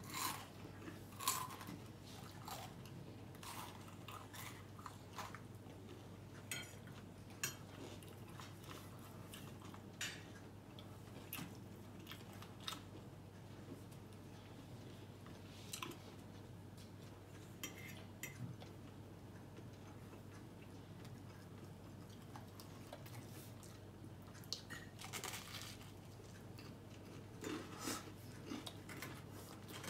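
Chewing and crunching of food at close range, with scattered short clicks of a metal fork against a plate.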